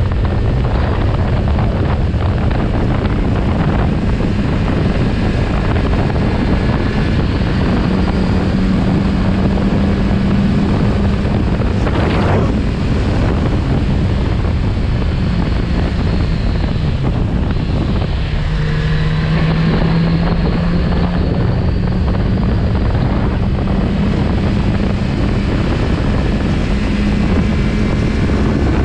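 Kawasaki Z900RS Cafe's inline-four engine running at steady road speed, heard from the rider's position with heavy wind noise on the microphone. The engine note drops lower a little past the middle for a few seconds, then climbs back.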